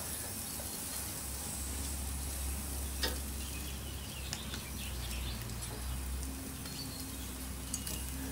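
Crocodile burgers and kebabs sizzling on a charcoal barbecue grill in a steady hiss, with one sharp click of metal tongs about three seconds in and a few lighter ticks near the end.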